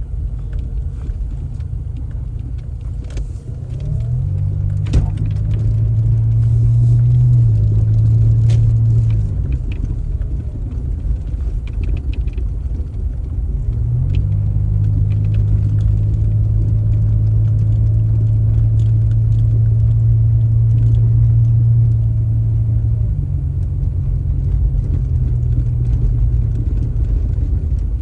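Low, steady motor-vehicle rumble that swells heavier twice, from about four to ten seconds in and again from about fourteen to twenty-three seconds in. A single sharp click comes about five seconds in.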